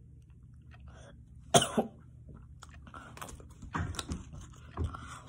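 A boy coughing twice in quick succession about a second and a half in, with a few softer coughs and breaths later on, from the burn of a 9-million-Scoville chili-extract gummy in his mouth.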